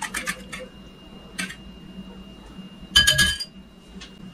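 Wire balloon whisk beating eggs in a glass bowl: rapid clinking of the wires against the glass that stops about half a second in. About three seconds in comes one short, ringing clink of glass.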